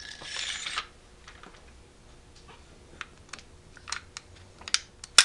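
Handling noise from an AR-15 upper receiver turned over in the hands: a short scraping slide in the first second, then scattered light clicks and taps of metal parts, with a sharper click near the end.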